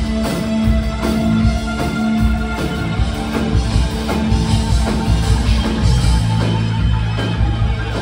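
Live new wave band playing through a venue's PA: synthesizer keyboard, electric guitar, bass and a steady drum-kit beat, heard from among the audience. The low bass note drops lower about six seconds in.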